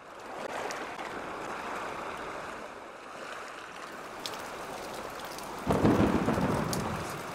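Steady hiss of rain, with a sudden low rumble of thunder about six seconds in that fades away.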